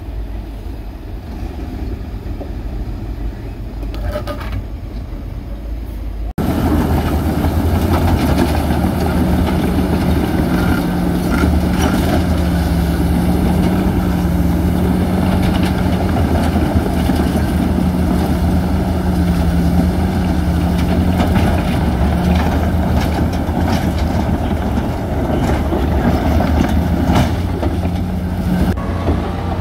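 Heavy diesel engine of earthmoving machinery running steadily. About six seconds in, the sound cuts abruptly to a louder, closer engine with a steady low drone.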